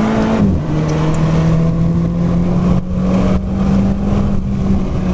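Car engine heard from inside the cabin under hard acceleration. The engine note drops with an upshift about half a second in, climbs steadily as the revs build, and drops again with another shift near the end.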